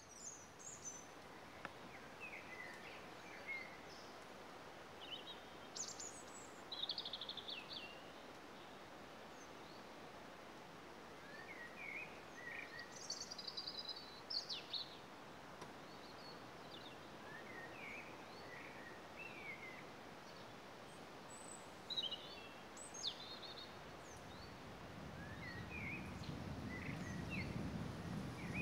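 Several small songbirds chirping and trilling, in short scattered calls over a faint steady hiss. A low rumble builds near the end.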